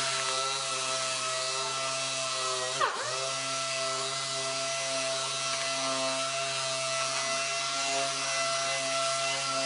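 6-inch random orbital sander running at speed with a foam-backed 150-grit disc, scuff-sanding a carbon fiber race wing; a steady high whine that dips in pitch briefly about three seconds in and comes straight back up.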